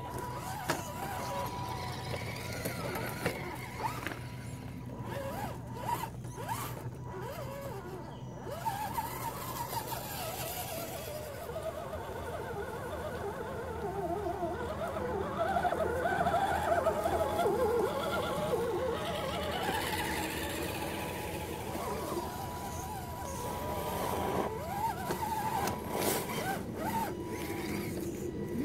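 Electric motors and geared drivetrains of RC scale crawler trucks whining, the pitch rising and falling as the throttle changes while they crawl over rocks and leaf litter.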